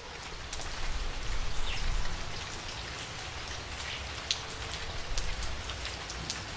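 Steady rain: a constant hiss dotted with many sharp ticks of single drops, over a low rumble.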